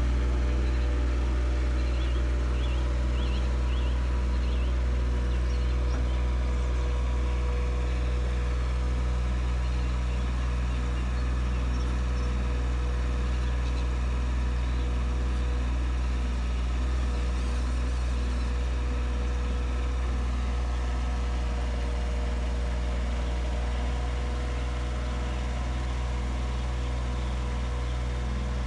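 Heavy truck's diesel engine idling steadily, a constant low hum.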